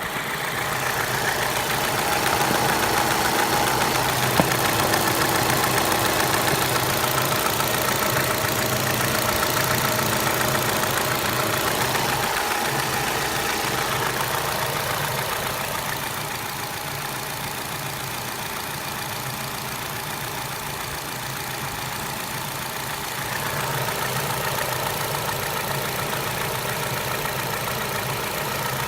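Opel Astra H engine running at idle with a knocking from its gears, the gear knock the owner is demonstrating. The running gets somewhat quieter about halfway through and picks up again near the end.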